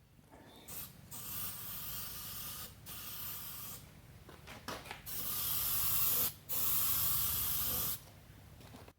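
Aerosol spray-paint can spraying in several hissing bursts with short pauses between, the last two loudest: a coat of paint going onto the steel stand.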